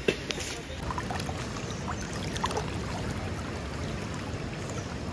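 Steady rushing of a shallow stream flowing over stones.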